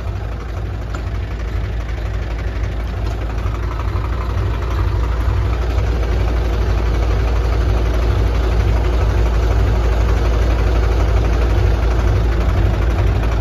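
Tractor diesel engine running hard under load, getting steadily louder as it strains to pull a trailer stuck in soft mud.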